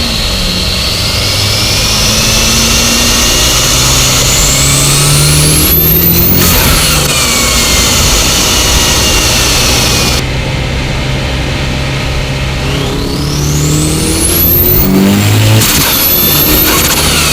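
The Holset HX35 twin-scroll turbo whistles as it spools on the 1990 Mitsubishi Eclipse GSX's turbocharged 4G63 four-cylinder, rising to a piercing pitch over two hard pulls. Each pull ends near 6 s and again near 16 s with a burst of rushing air as the blow-off valve vents boost, and the whine then falls away. The engine's drone runs underneath throughout.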